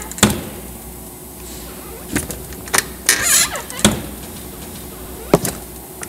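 LG French-door refrigerator door being worked open and shut: several sharp clicks with brief squeaking rubs of the door gasket, over a steady low hum. This is the squeak-and-click of a door gasket that is dirty or obstructed in its movement.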